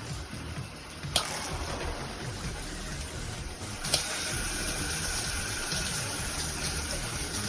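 Handheld shower head spraying water in a steady hiss, with a sharp click about a second in and another about four seconds in, after which the spray gets louder and brighter.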